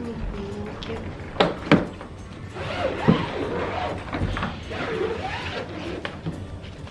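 Large soft-sided suitcase being opened on a wooden floor: two sharp thuds about a second and a half in as the lid falls open, another a little after three seconds, then rustling of the fabric lining being handled.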